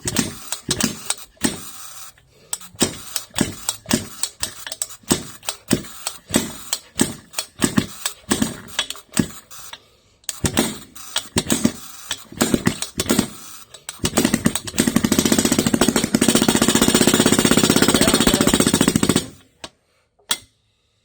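Barco H-6 gasoline jackhammer's single-cylinder engine firing in uneven pops, two or three a second, with a brief stop partway through. About two-thirds of the way in it catches and runs steadily at a fast hammering rate for about five seconds, then cuts out suddenly. It is running only on hand-primed fuel and not yet feeding from its own fuel supply.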